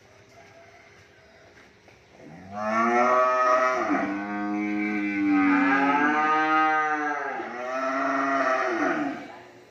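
A cow mooing: one long, loud call in three drawn-out parts, starting about two seconds in and dying away near the end, its pitch rising and falling.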